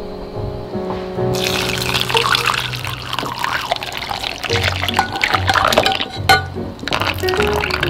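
Hot soy-milk agar mixture poured through a fine mesh strainer into a glass bowl, splashing steadily from about a second in until near the end, over background music.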